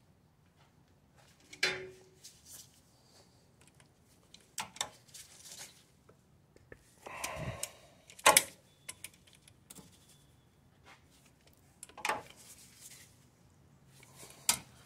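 Scattered metallic clicks and knocks of hand tools and bolts on the truck's underside during reassembly, a few sharp taps several seconds apart, with a short scraping rub about seven seconds in.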